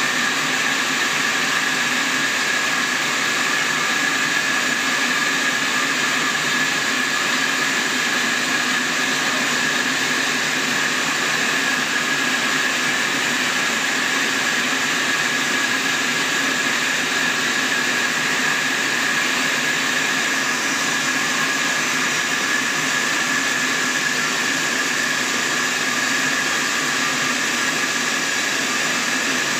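Log band sawmill running: a steady machine whir with a high, even whine.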